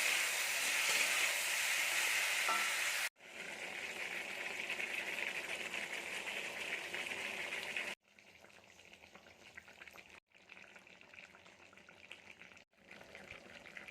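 Spicy chicken kosha sizzling as it fries in oil in a pan. The steady sizzle breaks off abruptly four times and is much softer over the last half.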